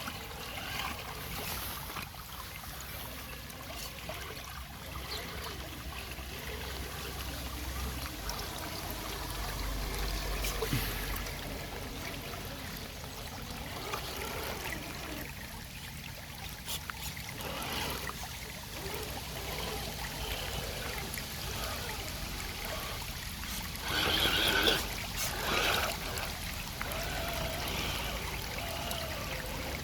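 Water trickling and running steadily, with a brief louder burst of noise about three-quarters of the way through.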